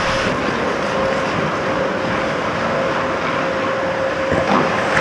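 Ice hockey play: skates scraping and carving on the ice over a steady arena hum, with a sharp knock about four and a half seconds in.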